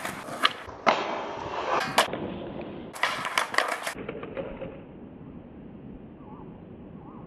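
Skateboard wheels rolling on concrete, with several sharp clacks and knocks of the board and a fall as a street trick at a stair rail is bailed. From about four seconds in, only a faint steady outdoor background remains.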